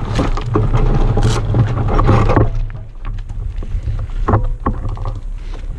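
Motorcycle engine running steadily, with metallic clatter and a few sharp knocks over it in the second half, as the fallen bike's kickstand is worked free of the fencing.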